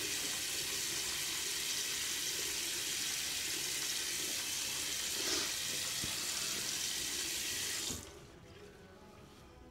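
Water tap running steadily into a sink, with a washcloth being used to rinse a face mask off; the running water cuts off suddenly about eight seconds in, leaving only faint music.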